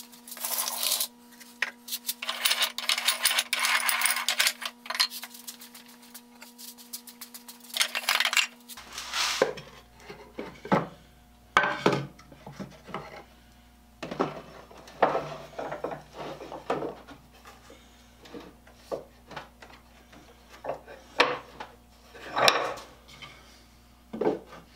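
Workbench handling of wooden birdhouse boards and small hardware: scattered knocks, taps and clatter of wood set down and shifted on a wooden bench. The first third is a sped-up stretch where the clatter runs dense and busy.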